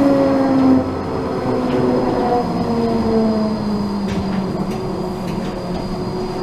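Electric tram heard from inside the passenger car: the traction drive's whine slowly falls in pitch as the tram slows, over a steady rumble of wheels on the rails. A few short clicks come about four to five seconds in.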